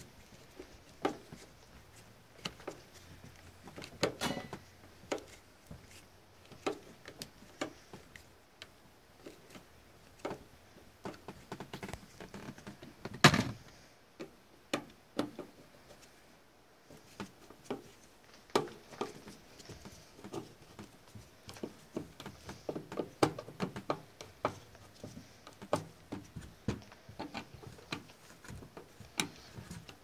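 Screwdriver driving sheet-metal screws into a water heater's metal access plate: scattered small clicks and scrapes of tool on metal, with one louder knock about thirteen seconds in.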